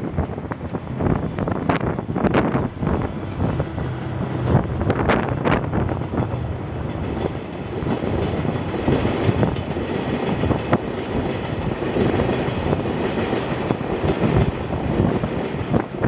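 A train passing close by, its wheels clattering over the rail joints in a steady rush of rolling noise, with wind buffeting the microphone.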